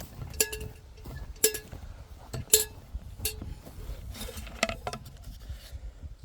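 Four sharp metallic clinks about a second apart, each ringing briefly, followed by a short scrape or rustle.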